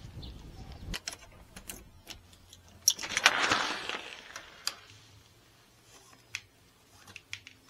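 Wind buffeting the microphone, cut off about a second in; then clicks and rattles of a front door's lever handle and latch, with a louder rattle and rush about three seconds in as the door is worked. Scattered light taps of shoes on a coir doormat near the end.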